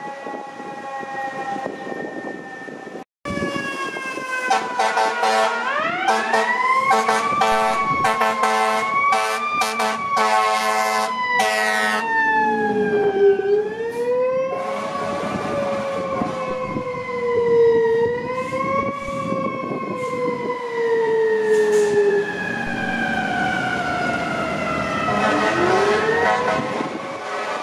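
Fire apparatus sirens wailing, sweeping up and down in pitch, with repeated air horn blasts over them for several seconds. The wail winds up again near the end.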